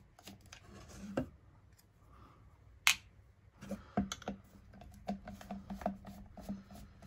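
A screwdriver backing small screws out of the plastic battery housing of a self-stirring mug: a scatter of light clicks and ticks, with one sharper click about three seconds in.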